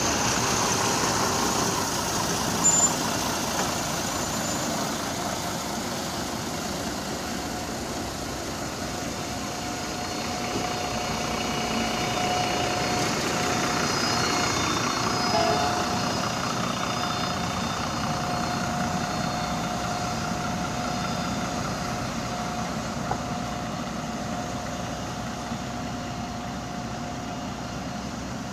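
Heavy vehicle engines running steadily as a tow truck and city buses move slowly through traffic, with a thin steady whine joining in about halfway through.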